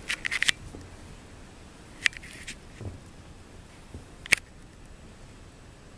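Cats playing on a rug: short bursts of sharp clicks and scuffs from paws and claws as the kitten dashes and pounces, once at the start, again about two seconds in, and a single sharp click just after four seconds.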